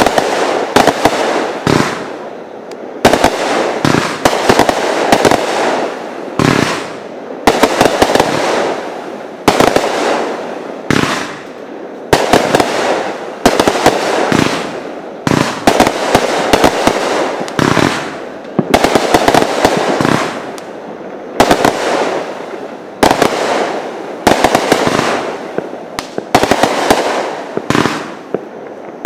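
Aerial fireworks bursting in quick succession, a sharp bang about every one to two seconds, each followed by a fading crackle.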